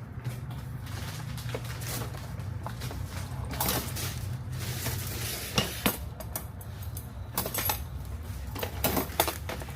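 Parts and packing being handled and rummaged through: irregular clinks, knocks and rustling, busier in the second half, over a steady low hum.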